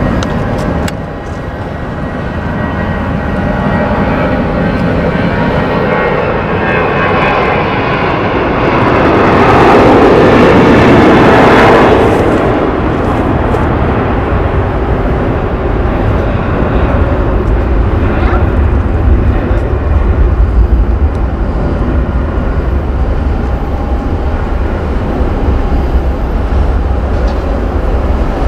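An Airbus A320-family airliner's jet engines at takeoff power during the takeoff roll. The noise builds to its loudest about ten seconds in as the jet passes, then eases to a steady low rumble as it climbs away.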